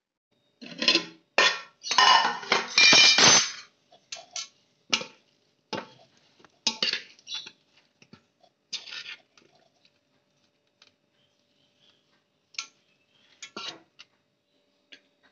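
Kitchen utensils clattering and scraping against a metal vessel, in a dense run for the first few seconds, then occasional short clinks and scrapes.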